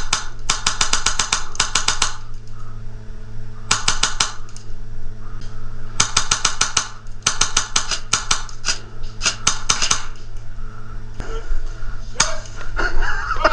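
Airsoft gun firing several rapid full-auto bursts of fast, evenly spaced cracks, the longest lasting about two seconds. A voice starts up near the end.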